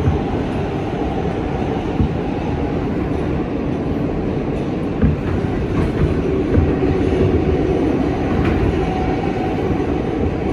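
R160B subway car (Kawasaki-built, Siemens propulsion) running at speed through a tunnel, heard from inside the car: a steady rumble of wheels on rail with occasional sharp clicks over rail joints.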